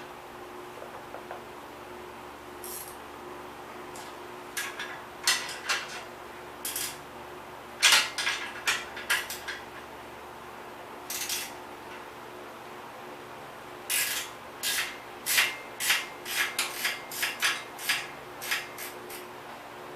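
Hand tools scraping and clinking on metal bicycle parts as they are taken apart: an irregular run of short scrapes and clicks, starting a few seconds in, loudest about eight seconds in and quickening near the end, over a faint steady hum.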